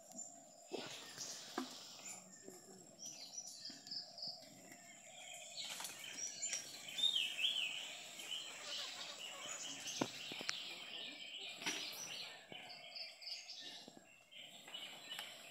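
Small birds chirping and twittering in the background, busiest and loudest about halfway through, with a few sharp clicks scattered through.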